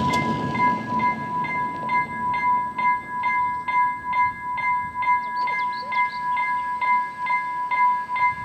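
Railway level-crossing warning bell ringing steadily about twice a second, as the crossing barriers begin to rise after a train has passed. The last of the train's noise cuts off at the very start.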